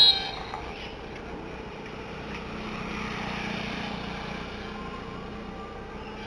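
Street traffic noise, with a vehicle passing that swells and fades around the middle. A brief, loud, high-pitched tone sounds at the very start.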